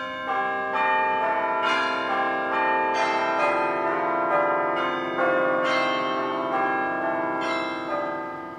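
Outro music of bell-like chimes: a slow tune of struck notes, each ringing on and overlapping the next, fading toward the end.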